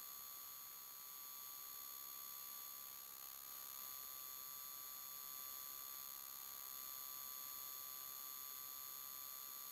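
Steady electrical hiss with several constant high-pitched whine tones from the recording electronics. No motorcycle engine or wind noise can be heard.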